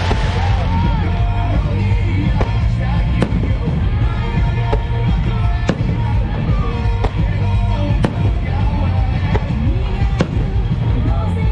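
Fireworks going off in sharp bangs, roughly once a second, over music played through loudspeakers for the show.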